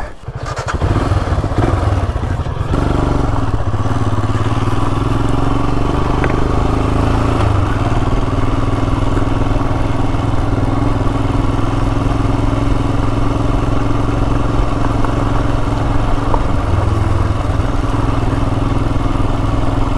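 Royal Enfield Himalayan single-cylinder motorcycle engine pulling away, its note rising through the first few seconds, then running at a steady cruising speed.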